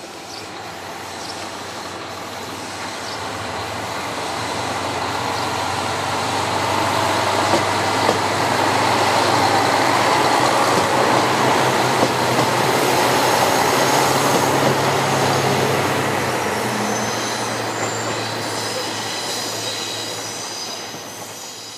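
JR Shikoku 2000 series diesel express train passing through the station. Its engine drone and wheel noise build to a peak about halfway through, then fade as it leaves, with a thin high wheel squeal near the end.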